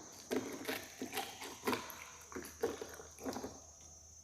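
A person drinking water in a series of gulps, about eight swallows roughly half a second apart.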